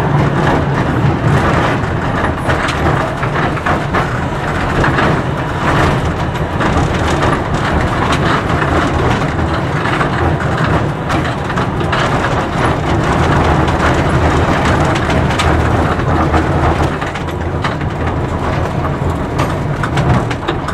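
A 1912 tram rolling slowly over depot track and points: a steady running rumble with frequent clicks and knocks from the wheels on the rail joints and switches.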